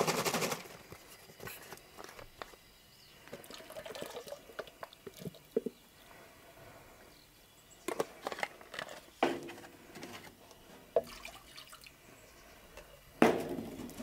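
Thin ketchup-and-vinegar mix pouring into an enamelled cast-iron pot, stopping about half a second in, followed by scattered drips and small clicks with a few sharper knocks later on.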